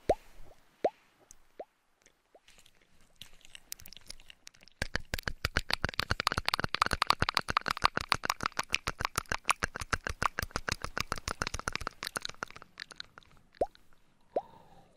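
Close-miked ASMR trigger sounds. A few short pops rising in pitch come near the start. From about five seconds in, a dense, fast run of crackling clicks takes over and thins out again after about twelve seconds.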